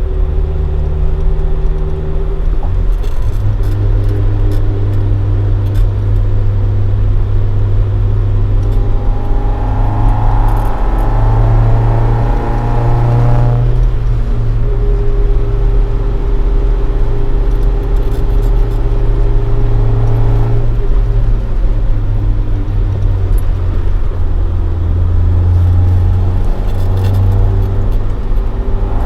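Toyota AE86 Sprinter Trueno with a swapped AE111 20-valve four-cylinder on individual throttle bodies and a Fujitsubo Legalis R exhaust, driving along. The engine note is mostly steady, but the revs climb for a few seconds about a third of the way in and then fall sharply; they climb again near the end.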